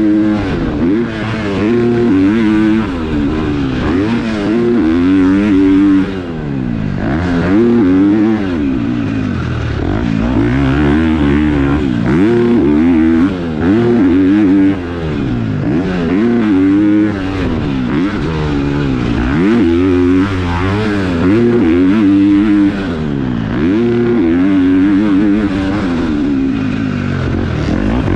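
KTM four-stroke motocross bike engine revving up and down over and over, the pitch climbing and falling every second or two, with brief drops in level when the throttle is shut.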